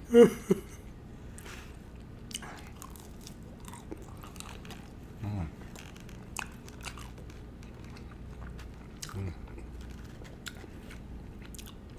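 Close-up chewing of crispy spicy fried chicken, with scattered short crunching clicks from the breading.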